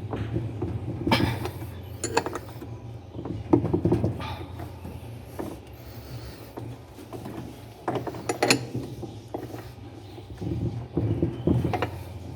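Wrench working the screw that fastens the wash basket of an Electrolux LTE12 washing machine to its spin tube, giving a few irregular metallic clicks and knocks as the screw is torqued down, over a steady low hum.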